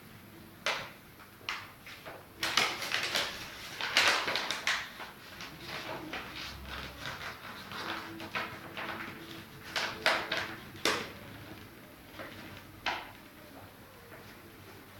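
A sheet of paper being handled, pressed and rubbed on a spray-painted board, making a run of short crinkling and scraping sounds.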